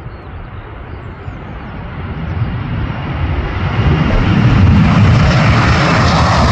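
Boeing 767-300ER's twin jet engines at takeoff thrust as the airliner lifts off. A rushing, rumbling noise grows steadily louder and brighter over the first four seconds, then holds loud.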